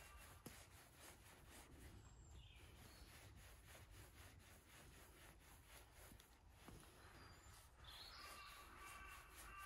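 Near silence in woodland with faint bird calls: a short falling call about two seconds in, and a longer call near the end.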